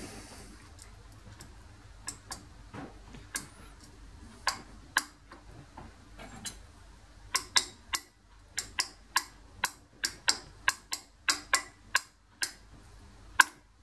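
Sharp metallic clicks and light taps of a hand tool and small steel parts being worked on a bearing housing: a few scattered clicks at first, then a quick, irregular run of them from about halfway through.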